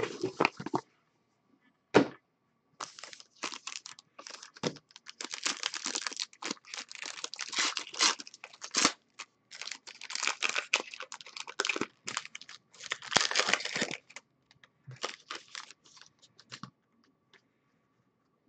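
Foil wrapper of a trading-card pack being torn open and crinkled by hand. It comes as a run of short crackling rips and rustles that thin out near the end, with one sharp tap about two seconds in.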